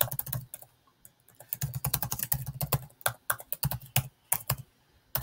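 Typing on a computer keyboard: quick runs of keystrokes with brief pauses between them.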